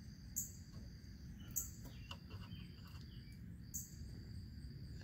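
Insects chirping: a steady high-pitched trill with a sharper chirp three times. A few faint small clicks come near the middle.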